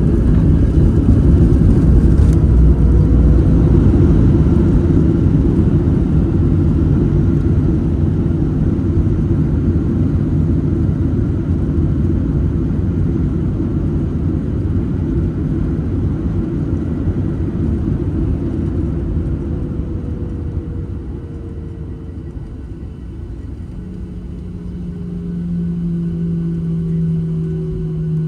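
Cabin noise of a Boeing 737-800 on the ground after landing, heard from a window seat: a loud low rumble of the CFM56 engines and the wheels on the runway that gradually fades over about twenty seconds as the aircraft slows. Near the end a steady engine drone swells again, with a faint falling whine above it.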